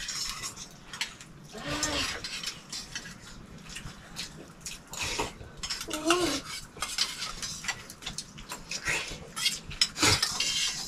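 Spoons clinking and scraping against stainless steel bowls and cups as several people eat, in many short irregular clinks. A short, wavering high call sounds once, about six seconds in.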